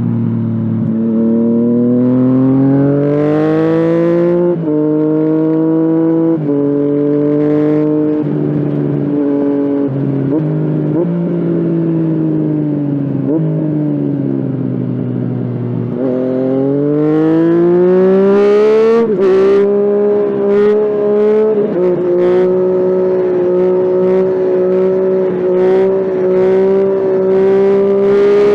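Yamaha FZ-09 (MT-09) 847 cc inline-three engine pulling hard through the gears: the pitch climbs and drops sharply at each upshift, eases off in the middle, climbs again, then holds steady at a higher pitch near the end.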